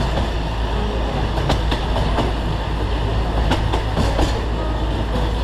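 Narrow-gauge forest railway train running, heard from an open passenger carriage: a steady rumble with the wheels clicking over the rail joints at irregular intervals.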